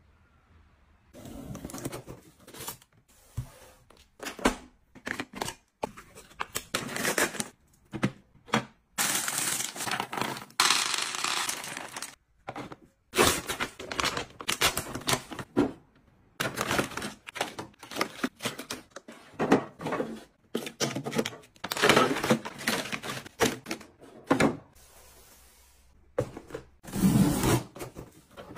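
Packaging and containers being handled: repeated bursts of crinkling and rustling, with clicks and knocks between them.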